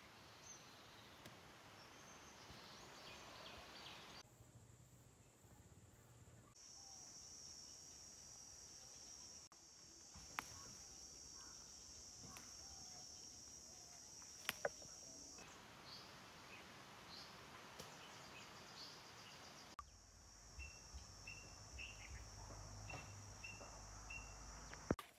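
Faint outdoor vegetation ambience: a steady high insect drone that cuts in and out abruptly, with a bird's short repeated chirps near the end and a few light clicks.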